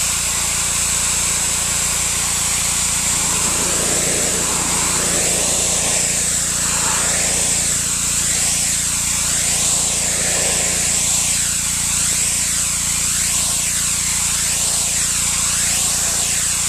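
Pressure washer running steadily: its motor's steady drone under the loud hiss of the high-pressure water jet blasting algicide-soaked concrete clean. The hiss shifts in tone as the wand sweeps back and forth over the surface.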